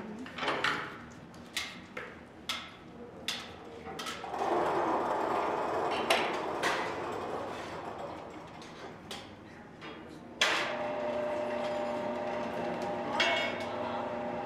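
Foundry furnace work: several sharp metal clanks, then a rushing roar about four seconds in. From about ten seconds in there is a steady machine hum with a held whine.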